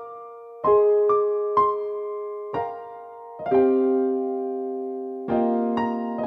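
Slow, gentle electric piano music: single notes and sustained chords struck a second or so apart, each ringing and fading away.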